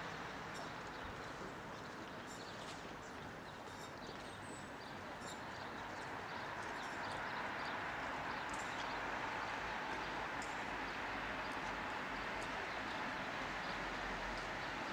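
City street ambience: a steady hum of distant traffic with scattered light clicks and ticks.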